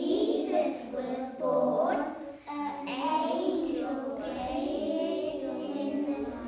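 A group of young children singing a song together in unison, with held notes.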